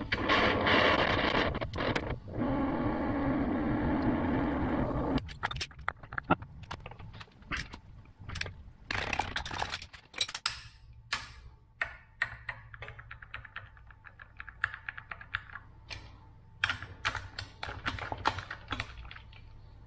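Oxy-acetylene torch flame hissing steadily as it heats a seized camshaft sprocket bolt, cut off abruptly about five seconds in. After that come scattered metallic clinks and rattles of hand tools at the bolt, with quick runs of clicks near the end.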